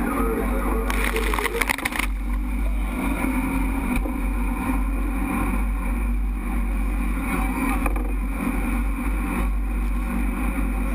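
Jet boat speeding through river rapids: a steady low rumble of wind and rushing water. A wave of spray crashes over the boat and sloshes for about the first two seconds.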